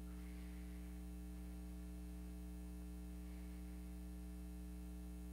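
Steady low electrical mains hum, an even buzz of several fixed tones with nothing else above it.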